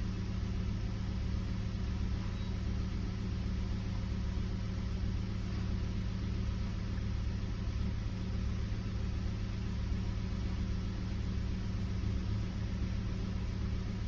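Kia Picanto's engine idling steadily, a low even hum.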